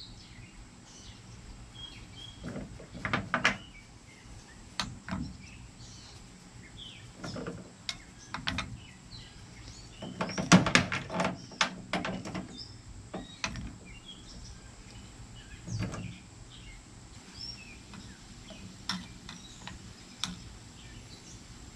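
Scattered light knocks and clinks of metal tools being handled, with a louder clatter about halfway through, over faint bird chirps.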